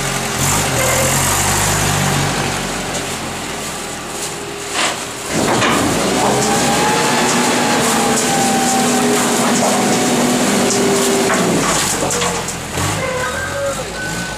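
Rotary-press garbage truck running at a standstill, then a steady mechanical whine from its packing mechanism for about six seconds in the middle before it falls back to the engine alone.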